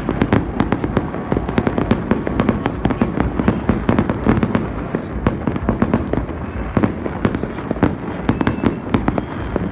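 Fireworks and firecrackers going off all over a city at once: a dense, unbroken rattle of bangs and pops, several a second, over a steady rumble.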